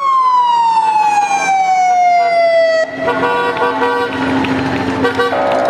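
Siren on the escort vehicles leading a marathon: one long wail falling steadily in pitch for about three seconds. It then breaks into short, choppy horn-like tones over passing vehicle noise.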